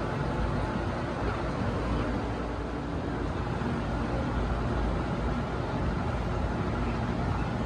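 Steady low rumble with a faint hum running under it, even throughout with no single event standing out: the background noise of the shop.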